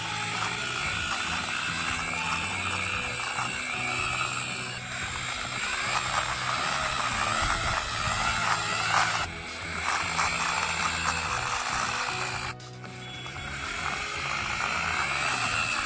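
Battery-operated toy airplane running, its motor and plastic gears whirring and clicking, over background music. The whirring drops out briefly about nine seconds in and again near thirteen seconds.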